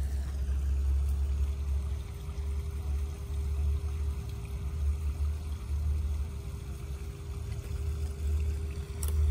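Wind rumbling on the microphone, swelling and easing unevenly, with a faint steady hum underneath.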